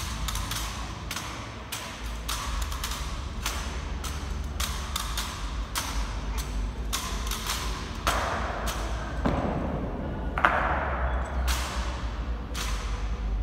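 Ceremonial rifle drill: rifles slapped into the guards' hands and rifle butts and boots knocking on the hall floor, a steady run of sharp knocks about two a second with a short echo after each. Two longer rasping sounds come about two-thirds of the way through, the second one the loudest.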